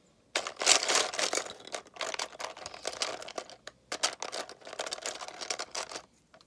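Lego bricks and minifigures clattering against each other and the sides of a plastic storage tub as a hand rummages through them. The rattling stops near the end.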